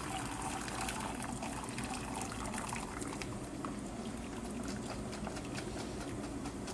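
Water draining from a plastic strainer of cooked instant noodles back into a pot of hot water: a steady trickle with many small drips.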